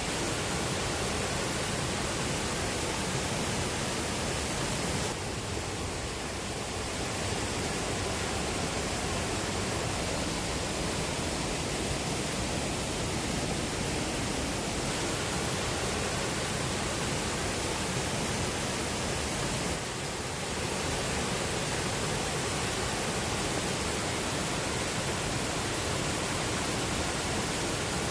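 Steady rush of water from a mountain waterfall and stream, an even noise with no pauses, dipping slightly in level twice.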